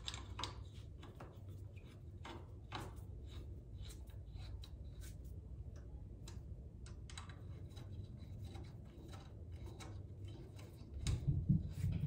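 Light, irregular metal clicks and ticks as bolts are turned in by hand, finger tight, on a motorcycle's chrome foot-peg hanger, over a steady low hum. Dull low thuds come in about a second before the end.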